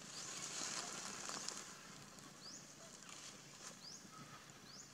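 Faint forest ambience: a high hiss in the first second and a half, then short, high chirps rising in pitch, roughly once a second.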